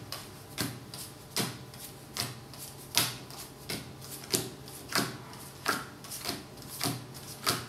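Playing cards dealt one at a time onto a wooden table: a short slap of card on card about every three-quarters of a second, around eleven in all, at an even rhythm.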